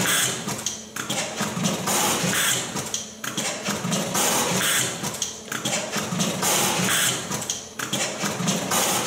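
A J.A.M. CPR Zero ST WP fully automatic terminal crimping machine running, clattering steadily with rapid clicks and a short lull roughly every two and a half seconds as it cycles through cutting, stripping and crimping wire.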